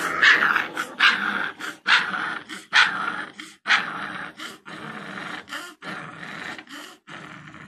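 Two gultair (Gull Terr) puppies growling and yipping as they play-fight, in a run of short sounds that are loudest in the first few seconds and grow fainter toward the end.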